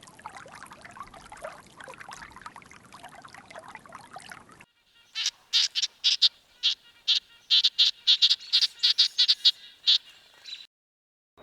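A rapid run of short, high, sharp animal calls, about four a second, follows a stretch of noisy background with faint calls.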